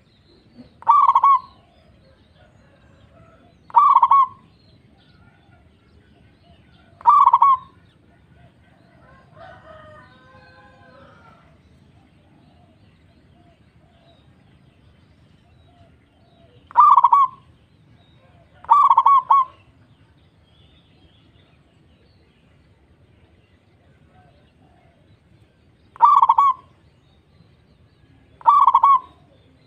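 Zebra dove (local perkutut) cooing: seven short, clear calls, three about three seconds apart, then two pairs after longer pauses.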